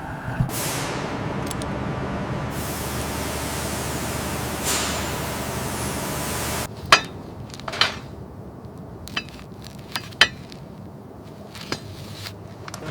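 A steady spraying hiss that cuts off about six and a half seconds in, followed by a handful of separate sharp knocks and clinks, like tools striking metal.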